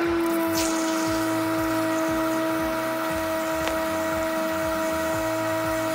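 High-pressure drain-cleaning washer running with a steady hum as its water jet sprays into a sewage-filled drain basin. The hum's pitch jumps and then settles lower right at the start as the jet opens, then holds steady over the hiss and splash of the water.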